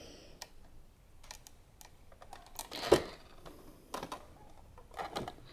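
Scattered light clicks and taps as a clear plastic gift box holding a ceramic piggy bank is handled and turned by hand, with a slightly louder knock about three seconds in.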